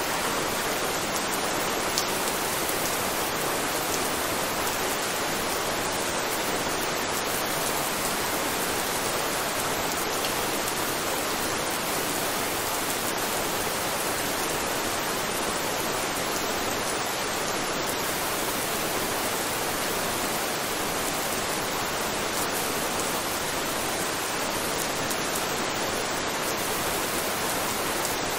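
Steady rain, an even hiss of falling drops with no changes, and one brief click about two seconds in.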